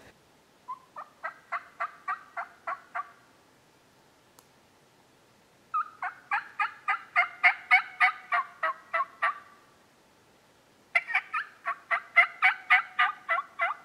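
Turkey call blown by mouth: three long runs of evenly spaced hen-turkey yelps, about three to four a second, each run opening on a higher drawn-out note, sent out to strike a gobble from a distant tom.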